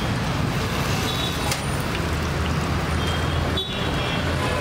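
Steady road traffic noise mixed with the sizzle of spiral-cut potatoes deep-frying in oil, with a low engine hum growing stronger near the end.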